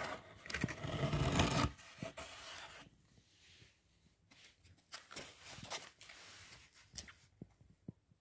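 Cardboard pizza box being opened and handled: a loud scraping and rubbing of cardboard for the first second and a half or so, then fainter rustles and a few light clicks.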